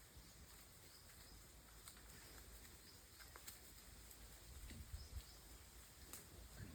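Faint outdoor ambience with a few short, high chirps and clicks scattered through it, and some low thumps toward the end.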